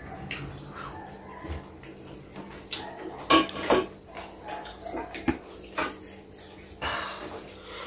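Fingers mixing and scooping rice and curry on a metal plate: scattered clinks and scrapes against the metal, the loudest a pair a little past three seconds in.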